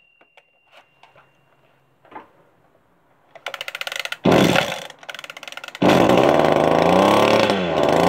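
Cold start on choke of an Echo brushcutter's two-stroke engine: the recoil starter cord rattles out about three and a half seconds in, and the engine fires once. About a second later it catches and runs, its revs rising and falling on the throttle because it will not hold an idle.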